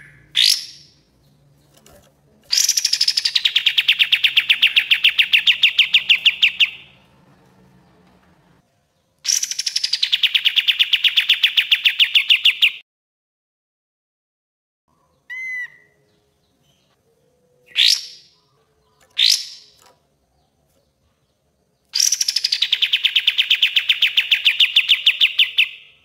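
Kapas tembak bulbul singing its rapid 'tembak' song: three long phrases, each opening with a falling note that runs straight into a fast string of evenly repeated notes, with a few short single calls between them.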